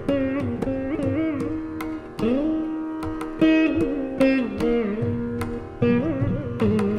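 Veena playing a Carnatic kriti in raga Khamas: plucked notes with sliding, bending pitches (gamakas) in a quick melodic line.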